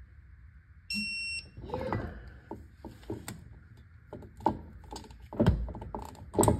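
Electronic torque wrench giving one steady beep of about half a second, the signal that a driveshaft flange bolt has reached its set torque. Sharp metal clinks and knocks of the wrench and socket on the flange bolts follow, the loudest near the end.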